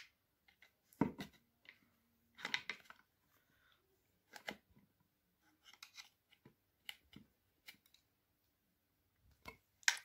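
Flat-blade screwdriver prying at the plastic housing and clips of an Opel Corsa D door lock unit: scattered clicks, scrapes and small snaps of plastic and metal, the loudest about a second in.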